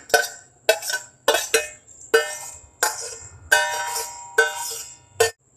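Metal spoon scraping and knocking against a steel saucepan as soft cooked peaches are scooped out. About nine ringing clinks at an uneven pace, some of them ringing on briefly.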